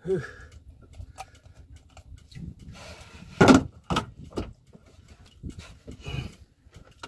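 Scattered small knocks and rustles as fishing line, hook and bait are handled aboard a small wooden boat, with one louder thump about three and a half seconds in and a few lighter knocks after it.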